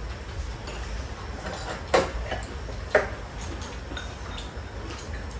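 Chopsticks and metal spoons clinking against ceramic bowls and plates as people eat, with two sharper clinks about a second apart near the middle.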